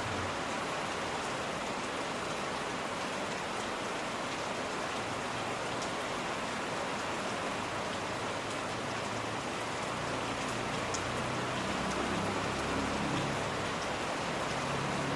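Steady rain falling, an even hiss with scattered drop ticks. A faint low rumble comes in underneath during the second half.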